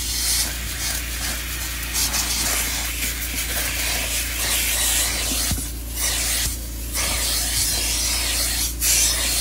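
Upholstery extraction machine running while its hand wand is worked over a fabric car seat: a steady motor hum under a loud hiss of spray and suction. The hiss dips briefly twice about six seconds in.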